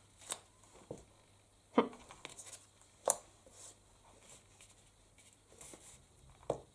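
Card-stock paper cutouts handled and set down on a card over a cutting mat: a few sharp taps with light paper rustling between them.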